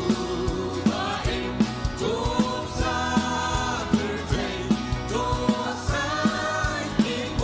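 A mixed group of men and women singing a gospel song together over instrumental accompaniment with a steady beat.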